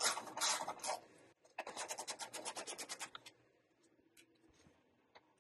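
Hand ratchet with a 10 mm socket turning a bolt out: about a second of rasping strokes, then a fast, even run of ratchet clicks, roughly a dozen a second, that stops a little over three seconds in.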